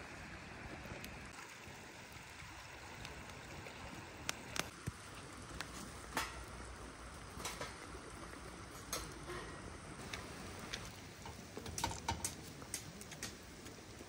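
Scattered light clicks and taps of cutlery and tableware, a few close together near the end, over a steady hiss.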